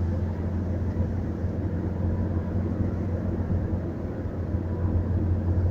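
Steady drone of a car driving through a road tunnel, heard inside the cabin: a low engine and road hum with an even rush of tyre noise.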